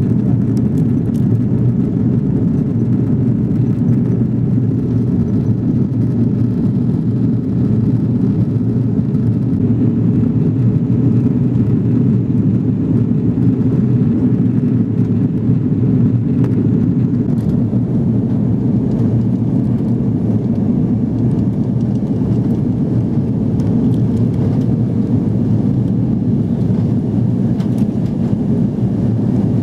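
Steady drone of an airliner in flight heard from inside the cabin, jet engines and rushing air, during its descent to land.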